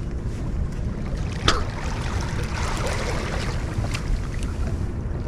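Steady low rumble of wind on the microphone and water around a fishing boat, with one sharp knock about a second and a half in.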